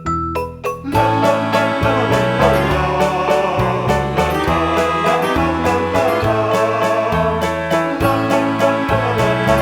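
Background music: a few separate plucked notes, then about a second in a fuller arrangement with a steady beat and bass comes in.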